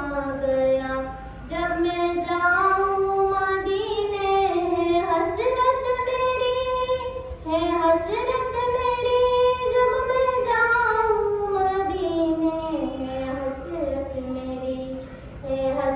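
A schoolgirl singing a naat, an Urdu devotional poem, solo and unaccompanied, in long, drawn-out melodic phrases. She pauses briefly for breath about a second in and again about halfway.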